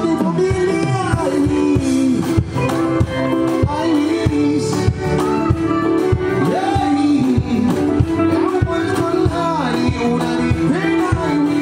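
Amplified music at a sound check: a sung vocal melody over guitar and a steady drum beat.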